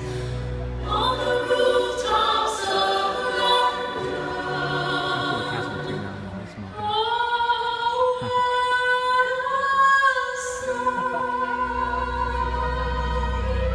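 Choir singing in long, held notes, with one sustained note held for about three seconds past the middle.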